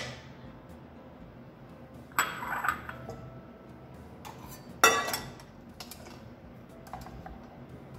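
Stainless steel saucepan and fine-mesh metal sieve clattering as they are handled and set down on the worktop: two clanks with a metallic ring, about two and five seconds in, the first trailing into a short scrape, and a faint tick near the end.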